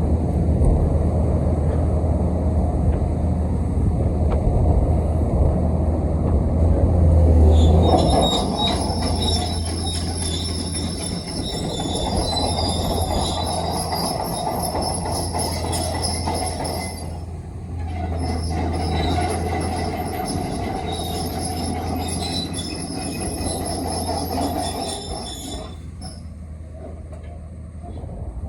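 Hitachi ZX870LCH-3 high-reach excavator's Isuzu diesel engine running steadily. About a quarter of the way in, a high-pitched metallic squeal of steel parts rubbing starts as the machine moves. The squeal breaks off briefly past the middle and stops shortly before the end.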